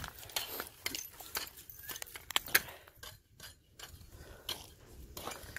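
Ice being chopped off a concrete driveway: irregular clicks and taps of breaking ice and loose shards clinking on the pavement.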